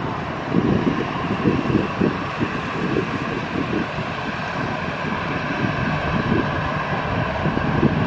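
Jet airliner engines running steadily, heard as an even roar with a faint whine, while wind buffets the microphone in irregular low gusts.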